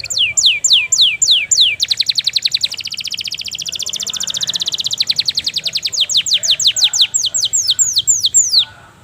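Domestic canary singing: a run of quick falling notes, then a fast rattling trill, then more falling notes. The song stops abruptly near the end.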